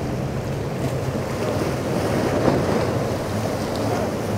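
Wind buffeting the microphone over choppy surf, with a boat's outboard engine running steadily underneath.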